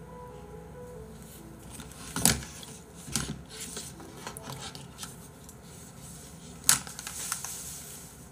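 A few sharp clicks and knocks of objects being handled, the loudest about two seconds in and near seven seconds, over quiet room tone.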